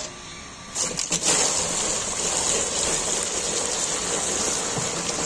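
Milk poured from an aluminium milk can into a plastic tub, gushing and splashing as the stream hits the milk already in the tub. The pour starts about a second in with a few sharp splashes, then runs as a steady gush.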